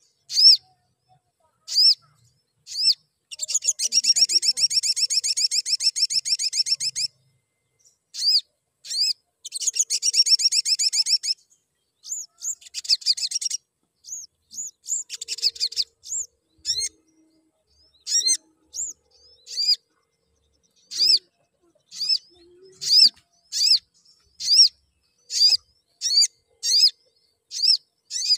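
Olive-backed sunbird chirping: sharp high chirps broken by long rapid trills, the first about four seconds long, in the first half. In the second half it gives single chirps repeated about every two-thirds of a second.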